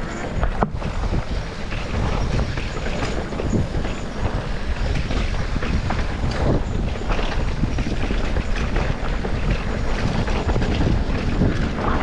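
Wind buffeting the microphone in a steady low rumble, with scattered short rattles and knocks throughout.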